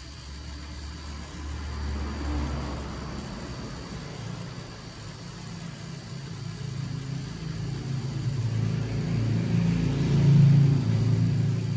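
A motor vehicle's engine running, its hum growing louder toward about ten seconds in and then easing off.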